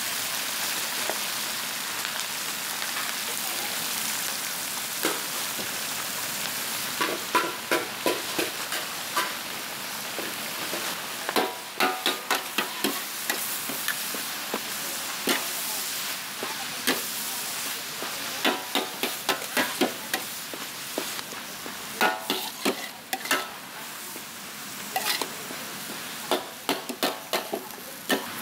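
Leafy greens sizzling in a large steel wok as they are stir-fried. A metal ladle and spatula clank and scrape against the wok in repeated quick clusters, starting about seven seconds in.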